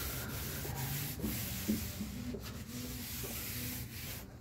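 A cloth rag rubbing steadily across ocumé wood veneer, working oil-based stain into the wood to blend out streaks and blotches.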